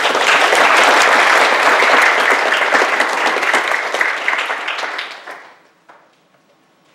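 Church congregation applauding, a dense patter of many hands clapping for about five seconds that dies away near the end.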